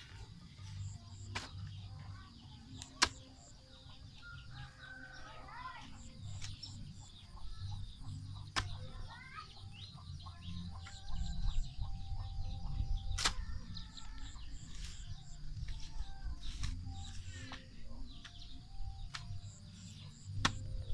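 A long-handled digging tool chopping into packed earth, with a sharp strike every few seconds and soil scraping between them. Birds call in the background.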